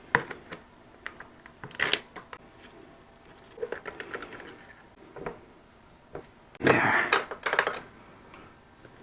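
Clicks, taps and light rattles of a small bolt-on toolkit box being handled and its lid worked, with a denser rattle lasting about a second near the end.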